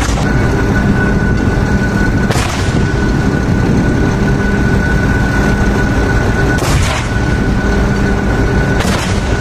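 Steady low rumble of a tracked mortar carrier's diesel engine running, with a steady whine over it. Mortar rounds fire three times, about two seconds in, near seven seconds and near the end, each a sharp report.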